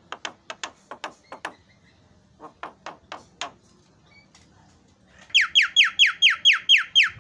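Javan myna calling: a quick string of short, rasping clicky notes, a few more after a pause, then about five seconds in a loud, rapid series of descending whistled notes, about five a second.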